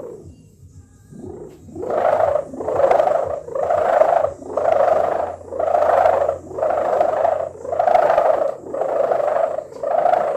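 Sendaren kite hummer, a stretched gift-ribbon and plastic-film strip buzzing in moving air with a snoring drone. The drone swells and fades about once a second, about nine times, after a quieter first two seconds.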